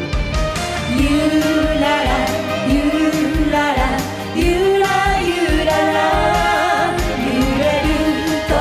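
A woman singing a Japanese pop song, her wavering melody line carried over a full band backing with a steady beat.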